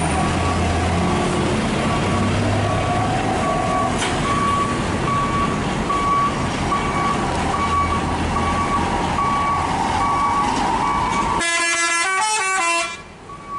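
Intercity bus engine running low as the bus pulls away, with an electronic warning beeper sounding about twice a second. About eleven seconds in, a multi-tone 'telolet' musical bus horn plays a short tune of stepping notes.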